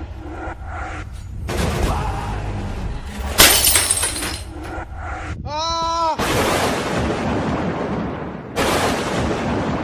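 Loud crashing and shattering, like glass breaking, strongest about three and a half seconds in. A short wavering pitched tone comes just before six seconds, and further noisy crashes follow.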